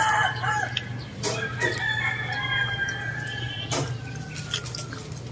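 Rooster crowing: one long call starting about a second in and lasting about three seconds, with a few short sharp clicks around it.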